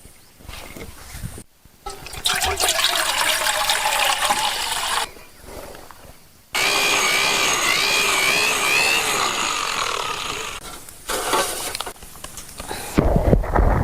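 Rain and running water, in several short stretches that start and stop abruptly. A wavering whistle-like tone rises and falls over the rain in the middle.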